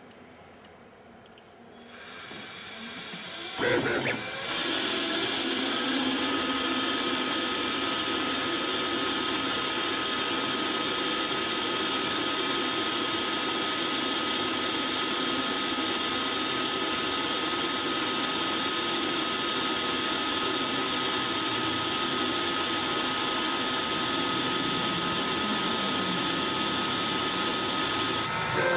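CNC-converted Myford ML7 lathe starting up about two seconds in, with a brief clunk near four seconds, then running steadily. A thin steady whine joins a few seconds later.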